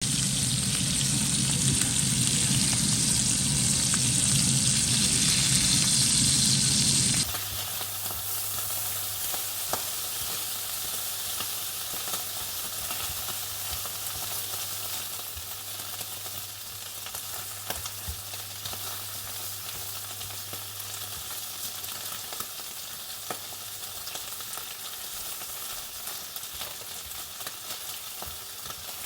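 Food sizzling as it fries in a pan, loud for about the first seven seconds, then cutting suddenly to a quieter steady sizzle with occasional light clicks as it is stirred.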